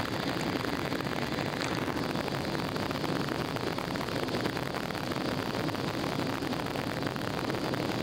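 Steady cabin noise of a jet airliner climbing after take-off: engines and rushing air heard through the fuselage as an even, low rumble.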